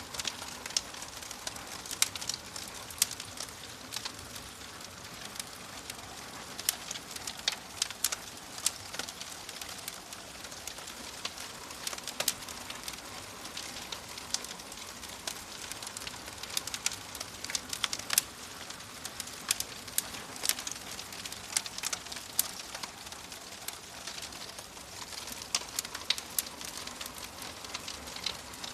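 Wood fire burning in a fireplace: a steady crackle and hiss with frequent sharp, irregular pops and snaps.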